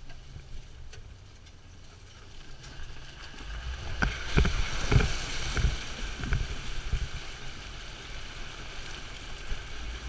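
A 2014 Jeep Wrangler Rubicon fording a creek. A low rumble gives way about four seconds in to water splashing and rushing along the vehicle's side, with a run of heavy splashes as it pushes into the water. The rush then settles into a steadier wash.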